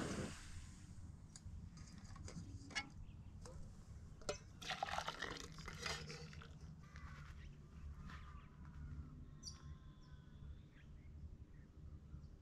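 Faint outdoor bush ambience: scattered soft clicks and crackles through the first half, then a few thin whistled bird calls in the second half.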